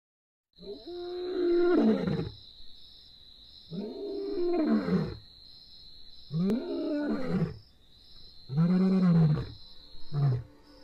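Male lion roaring: four long roars, each rising then falling in pitch, followed by a short grunt near the end, the pattern of a lion's roaring bout. A steady high-pitched trill runs behind.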